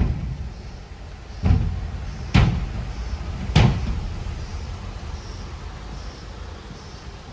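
A car jolting over a rough, broken road: four sharp thuds in the first four seconds, the loudest about 2.4 and 3.6 seconds in, over a steady low road rumble heard from inside the cabin.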